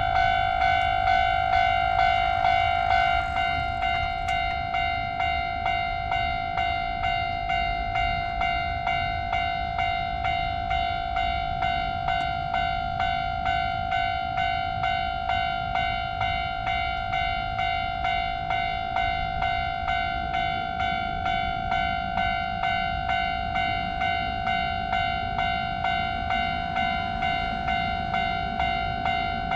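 Japanese railroad crossing alarm ringing, its electronic bell striking about twice a second over a low rumble. The bell gets a little quieter about three seconds in.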